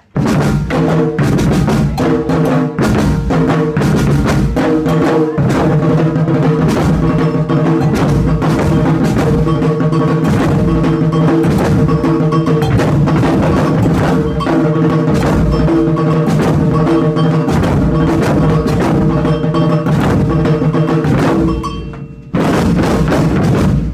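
Percussion ensemble playing a fast, dense drum rhythm. Near the end it drops off briefly, then comes back loud.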